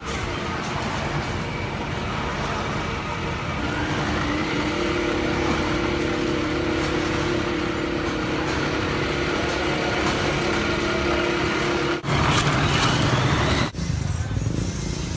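Road vehicle engines running in street traffic, with a steady engine hum through most of it. The sound breaks off abruptly twice near the end.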